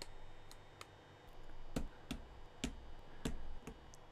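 Irregular clicks and clacks, about eight in all, some with a duller thump, as plastic keycaps are pressed down onto the Boba U4T switches of a mechanical keyboard.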